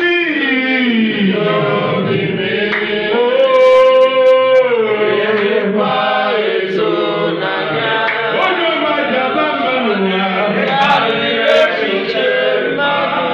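Voices singing a gospel praise song together, with a long held note about four seconds in.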